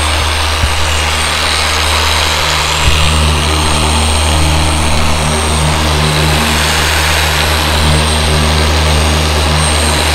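Dual-action orbital polisher with an orange medium-cut foam pad running steadily on car paint, working in polishing compound: a loud, even motor drone with a low hum. Two brief knocks in the first three seconds.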